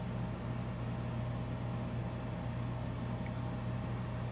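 A steady low machine hum with a few faint, even higher tones and a light hiss over it.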